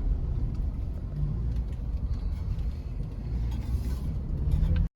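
Toyota 4Runner crawling over a rough off-road trail, heard from inside the cabin: a steady low rumble with a few faint knocks. The sound cuts off suddenly near the end.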